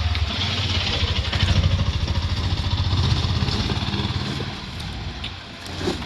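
An engine running with a low, fast-pulsing rumble that fades away about four and a half seconds in, followed by a short knock near the end.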